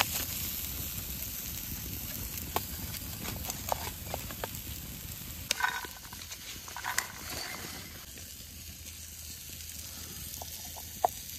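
Steak sizzling over campfire coals: a steady hiss with scattered pops and crackles.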